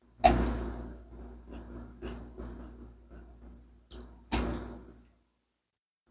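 Bites into a crisp raw lettuce leaf: two loud crunching bites about four seconds apart, with crunchy chewing crackles in between that die away after the second bite.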